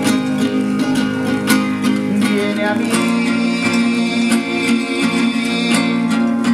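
Acoustic guitars strumming the accompaniment of a devotional Marian song, with no sung words.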